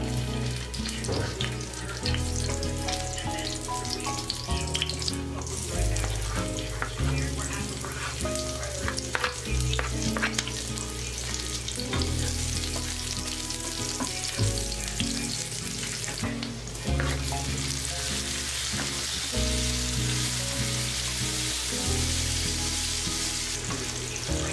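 Garlic and red onion frying in hot oil in a pan, sizzling, with a wooden spatula stirring and scraping against the pan; the sizzle grows louder about two thirds of the way in. Background music with steady low notes plays underneath.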